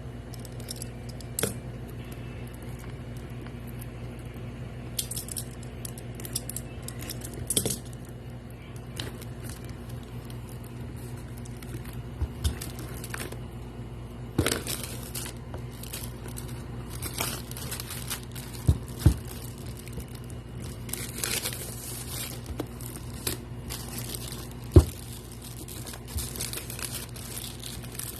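Portable monitor's packaging being handled and unwrapped: intermittent crinkling and tearing of wrapping, with scattered clicks and a few sharp knocks, over a steady low hum.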